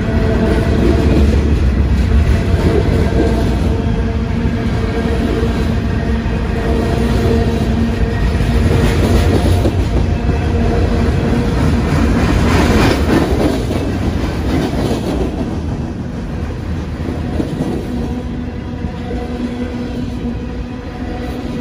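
Freight train cars rolling past close by, wheels clattering over the rails, with a faint steady whine underneath; the noise swells twice in the middle as cars go by.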